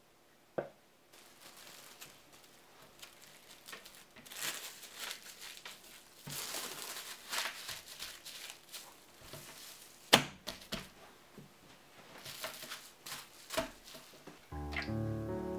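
Plastic cling film crinkling and rustling as hands wrap a lump of sweet tart dough in it and press it flat, with an irregular crackle throughout and one sharp tap about ten seconds in.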